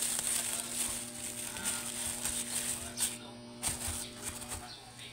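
Thin plastic bag crinkling and rustling as the vegetables inside it are handled, with a steady low hum underneath.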